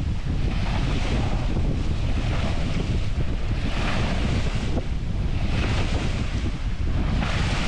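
Wind buffeting the microphone with a heavy, steady rumble, over the rush and hiss of water breaking along the hull of a sailboat beating to windward. The hiss swells in surges every second or two as the bow cuts through short, steep waves in a rising wind.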